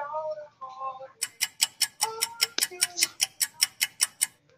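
Clock-ticking sound effect: a fast, even tick about six or seven times a second, starting about a second in and stopping just before the end. A man's singing voice sounds at the start and again partway through.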